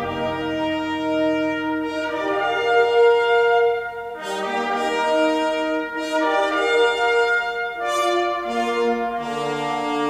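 Orchestral brass, with horns, trombones and trumpets, playing held chords that change every second or two, reproduced through a pair of hi-fi floor-standing loudspeakers.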